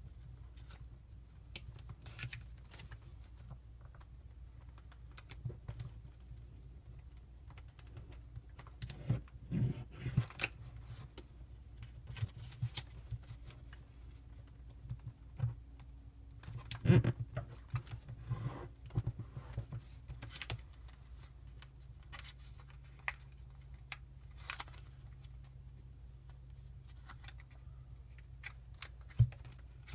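Origami paper being folded and creased by hand, close up: scattered soft rustles and crisp crinkles as the sheet is handled and pressed flat, in busier flurries around ten and seventeen seconds in, with one sharp crackle near the end.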